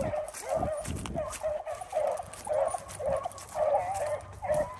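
A pack of beagles baying on a rabbit's trail: many short, overlapping calls in a steady, unbroken chorus as the hounds run the scent. Footsteps in grass thump underneath about twice a second.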